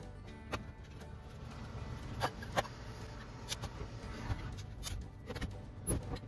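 Several short, sharp knocks and clacks from a plastic-coated steel Erector-pipe bed frame and its joints being gripped and handled, over a low steady rumble.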